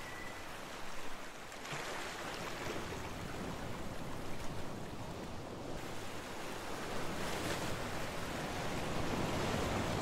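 Ocean surf washing ashore: a steady rushing of waves that swells and eases.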